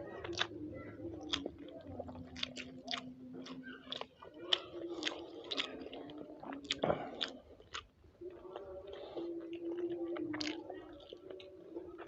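Close-up chewing and biting of grilled chicken and rice, with frequent wet smacking clicks from the mouth. A steady low hum runs underneath.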